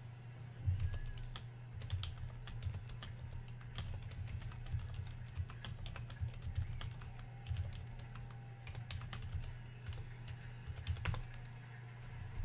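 Typing on a computer keyboard: a steady run of irregular key clicks over a low, steady hum.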